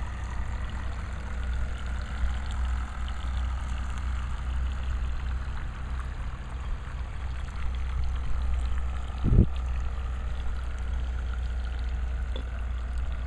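Faint whine of a battery-powered radio-controlled model patrol boat's electric motor under way, over a steady low rumble, with one brief thump about nine seconds in.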